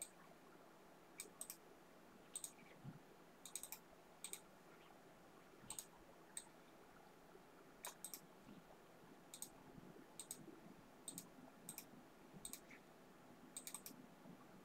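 Faint clicks of a computer mouse, single and now and then in quick pairs or triplets, coming unevenly about one to two a second over quiet room tone.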